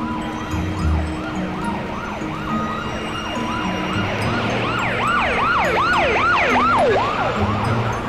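Siren-like warbling tone rising and falling about three times a second, getting louder a little past halfway and fading near the end, over sustained low musical notes.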